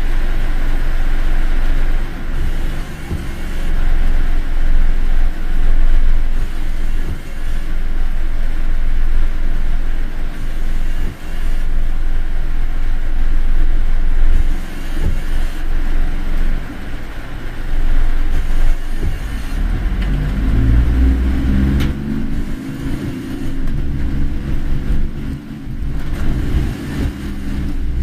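Car driving: steady low road and engine rumble, with a pitched engine note coming up about twenty seconds in and lasting several seconds.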